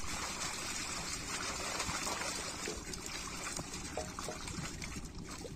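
Shallow pond water splashing and trickling as a fishing net full of small fish is worked by hand, with many small irregular splashes and drips.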